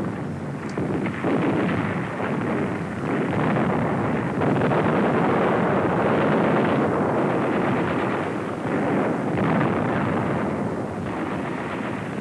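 Battle sounds of gunfire and explosions: a dense, continuous din that swells and eases.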